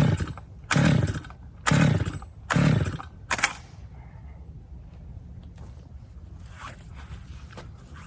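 Two-stroke chainsaw being pull-started: five quick pulls of the recoil starter in about three and a half seconds, the last one short, and the engine turns over without catching.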